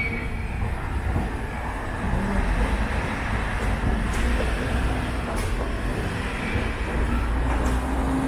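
Train running through a rail station: a steady low rumble with faint ticks every second or so.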